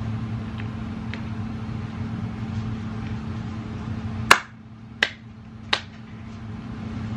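Three crisp finger snaps about 0.7 seconds apart, the first the loudest, over a steady low room hum that drops away at the first snap.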